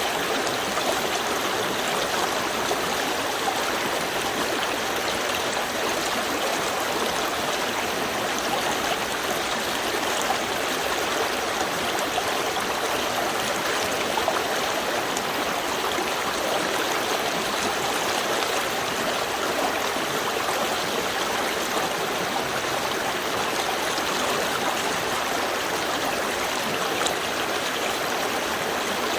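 Small river stream flowing calmly, a steady rush of water with bubbling and trickling.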